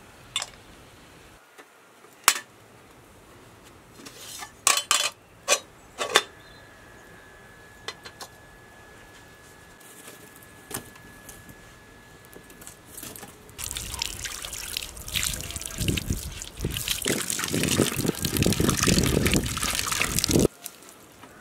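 A few sharp clicks as a glass teapot and its lid are handled. About two-thirds of the way in, the loudest sound starts: water splashing and swishing as hands rinse out a wooden bowl, cutting off abruptly just before the end.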